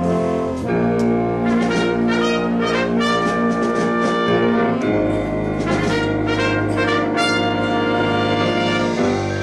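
Church orchestra with a prominent brass section (trumpets and trombones) playing a hymn instrumentally: held chords that change every second or two, a fuller low chord entering about halfway through, and a few percussion strikes.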